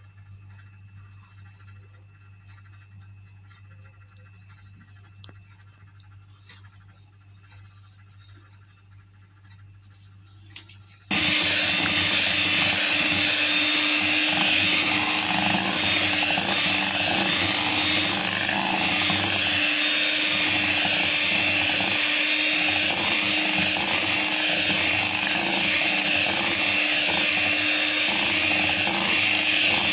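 Electric hand mixer beating chocolate muffin batter in a glass bowl, switching on abruptly about eleven seconds in and running steadily at one speed. Before it starts there is only a faint low hum.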